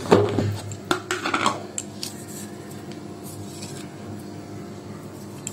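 Kitchen utensils and a pan clinking and knocking, several sharp strikes in the first second and a half, then only a steady low hum.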